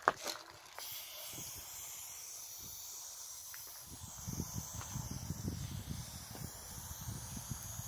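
Aerosol can of Montana BLACK spray paint giving a steady hiss as paint is sprayed, after a sharp click right at the start.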